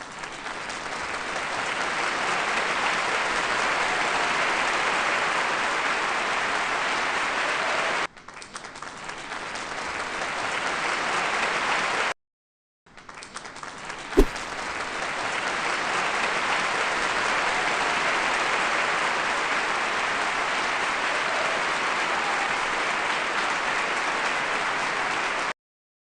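Huge indoor crowd applauding, a stock sound effect that swells in. It cuts off abruptly and starts over about eight seconds in, breaks off again into a short silence about twelve seconds in, restarts with a single click, and stops abruptly near the end.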